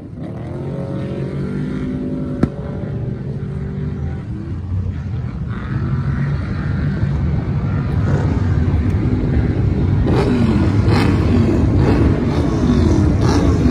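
Off-road race truck engines running and revving hard as the trucks pass on the dirt course, their pitch rising and falling. The sound grows louder in the last few seconds. There is a single sharp click about two and a half seconds in.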